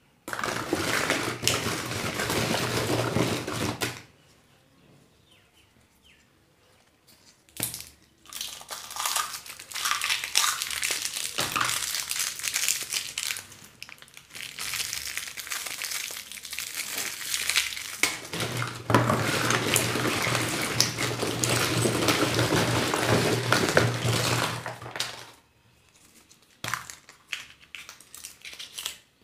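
Candy and surprise-egg wrappers crinkling and crumpling as they are handled and unwrapped, in a burst of a few seconds, then after a pause a long stretch of crinkling with short breaks; a few light clicks near the end.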